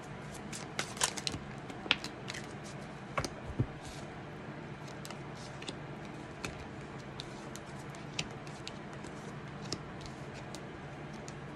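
A deck of tarot cards being shuffled by hand and then drawn and laid out, making irregular light clicks and snaps that come thickest in the first few seconds and thin out to scattered ticks afterwards.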